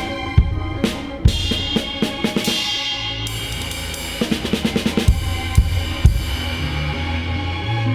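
Music with a drum-kit beat (kick drum, snare and cymbals) under sustained pitched tones; a bright hiss like a cymbal wash comes in about three seconds in.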